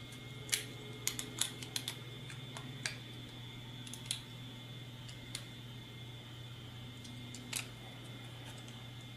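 Light clicks and taps of a small screwdriver and metal nuts against black plastic robot leg and foot brackets as the bolts are worked in by hand: a quick cluster in the first two seconds, then single clicks every second or two. A steady low hum runs underneath.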